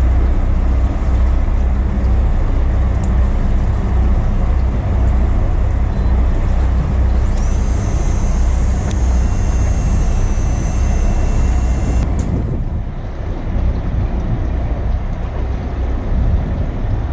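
Fishing boat's engine running with a steady, pulsing low drone that drops in level about two-thirds of the way through. Over it, a high steady whine starts about seven seconds in and cuts off suddenly some five seconds later.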